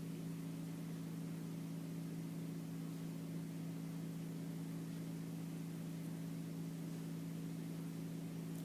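Steady low hum made of two constant tones, with a faint even hiss: room tone with no other distinct sound.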